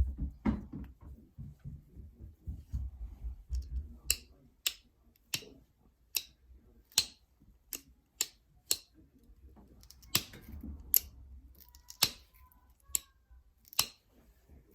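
Novaculite point being flintknapped: about a dozen sharp clicks, one every half second to second, as flakes snap off the stone. Before them come a few seconds of low rubbing and handling noise.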